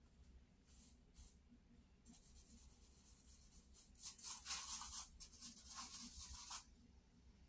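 Fingers and the side of a hand rubbing charcoal into sketchbook paper to blend the shading: soft, dry brushing strokes, a couple of faint ones at first, then a louder run of quick rubbing from about four seconds in until a little past six seconds.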